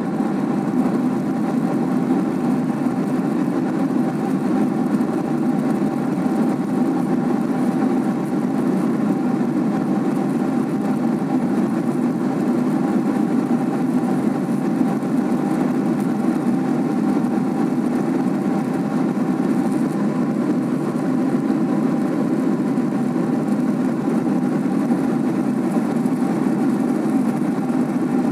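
Steady drone of a jet airliner's engines and rushing air heard inside the passenger cabin in cruise, with a constant higher hum running through it.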